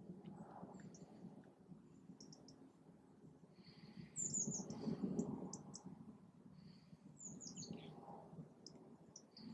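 Small songbirds calling in short high chirps and quick down-slurred notes, scattered through, with a busier run of calls about four to five seconds in, over a low background rumble that swells at the same time.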